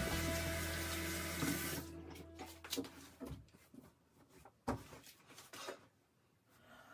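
Tap water running into a bathroom sink, shutting off about two seconds in, then a few scattered clicks and knocks as items are handled at the sink.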